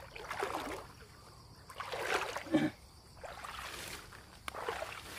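Short splashes and swishes in shallow marsh water and wet grass as a hooked fish is brought in on a spinning rod, coming in a few separate bursts about half a second in, around two seconds, and near the end.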